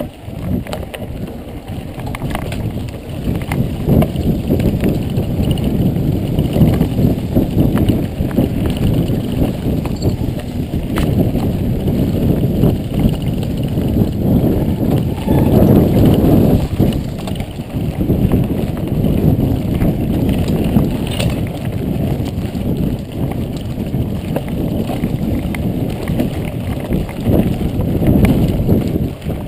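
Mountain bike ridden fast over rough trail: a steady low rumble of wind and tyres, with the rattle and knocks of the bike over bumps.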